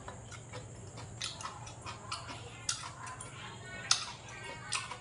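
Eating at the table: scattered sharp clicks of chopsticks against porcelain bowls and plates, mixed with chewing and mouth sounds, the loudest click about four seconds in.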